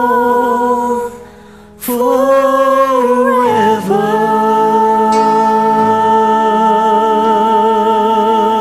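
A man and a woman singing a ballad duet over a karaoke backing track, closing on the drawn-out word "forever". The singing drops out briefly about a second in, then returns, and from about four seconds in one long note is held steady.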